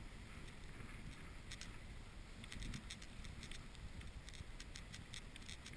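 A dog sled running along a packed snow trail behind a dog team: a steady low rumble with scattered light clicks and patter.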